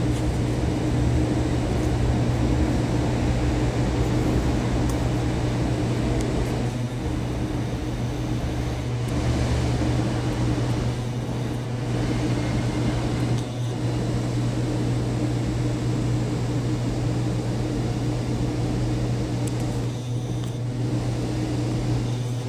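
Steady low mechanical hum with a constant drone that does not change, like the machinery of ventilation or electrical equipment.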